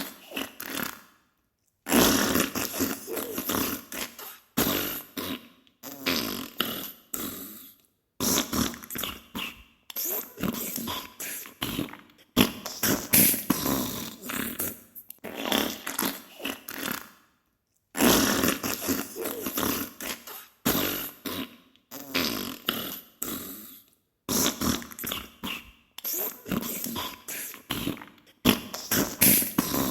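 Diarrhea sound effect: wet, sputtering fart bursts, one after another, with short pauses between them.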